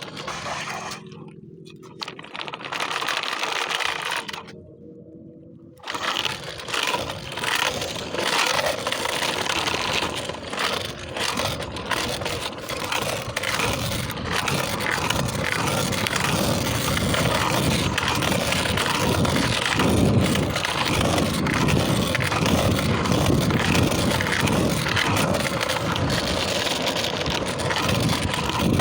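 Scooter wheels rolling over rough pavement: a steady scraping rumble with frequent small clicks and rattles. It settles into a loud, even run about six seconds in.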